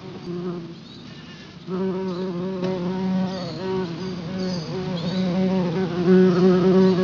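Buzzing of a swarm of honey bees, a cartoon sound effect with a wavering hum. It gets much louder about two seconds in as more bees join.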